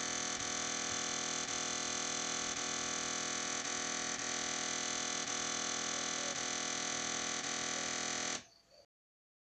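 Amstrad CPC 6128's 3-inch floppy disk drive buzzing loudly and steadily with faint ticks about twice a second as it tries to read a disk, cutting off suddenly near the end. The sound is abnormal: the drive fails to read the disk.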